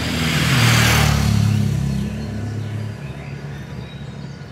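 Motorcycle passing close by, its engine loudest about a second in, then fading away.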